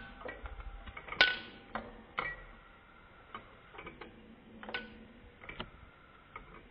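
Sharp clicks of a piezo-crystal spark igniter firing a Maier single-cylinder butane model gas engine, each click with a brief metallic ring. They come at uneven intervals of about half a second to a second, the loudest about a second in, and grow fainter toward the end.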